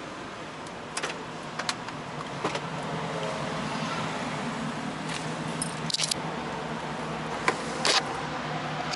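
Sharp metallic clicks and jingling from the driver's door being opened and the driver climbing out of a parked Mazda, loudest about six and eight seconds in, over the steady low hum of an idling engine.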